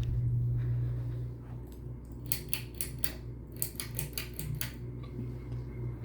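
Ceiling fan running with a steady low motor hum. A quick run of about ten light metallic clicks sounds from a little after two seconds in to near the end.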